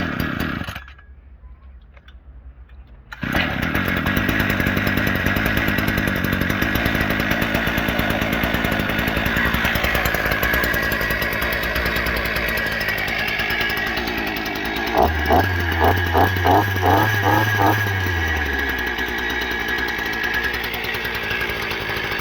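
Parkside PBK 4 B3 multi-tool's two-stroke petrol engine catching suddenly a few seconds in with the choke pushed back in, then running steadily. About two-thirds of the way through it is revved in a quick series of short blips.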